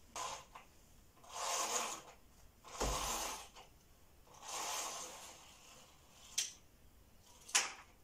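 Three long rustling swishes, then two sharp clicks near the end.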